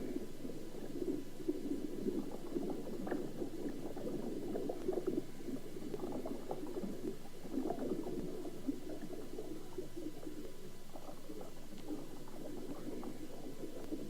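Water heard with the microphone submerged: a continuous muffled bubbling and gurgling, dense with small crackles and pops, with no break.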